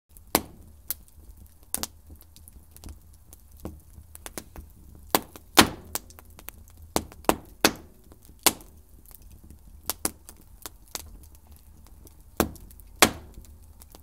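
A series of sharp knocks and clinks, about a dozen loud ones at irregular intervals with fainter ones between, over a low steady hum.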